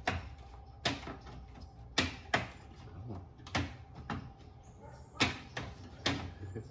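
Plastic BMW kidney grille being pressed into the front bumper: a run of about eight sharp plastic clicks and knocks, irregularly spaced, as the clips are worked into place.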